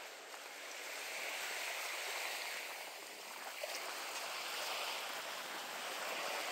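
Outdoor wind-and-water noise over a shallow lagoon: an even hiss, like lapping water and breeze, that swells and eases twice.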